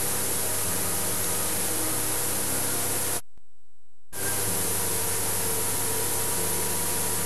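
Steady hiss with a faint low hum underneath. The hiss drops out for about a second a little before halfway, leaving only a low rumble, then comes back.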